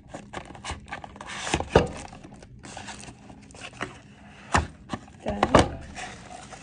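A cardboard scented-candle gift box being handled and opened: cardboard sliding and rustling, with a string of taps and knocks, the loudest about two seconds in and a few more past the middle.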